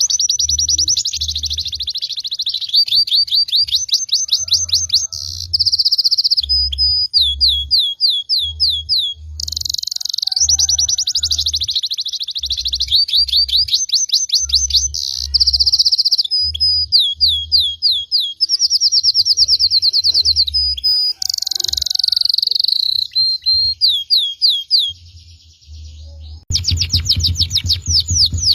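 Caged songbirds singing continuously: fast trills and long runs of quickly repeated sweeping notes, high-pitched and loud. Low, irregular thumps pulse underneath and grow louder near the end.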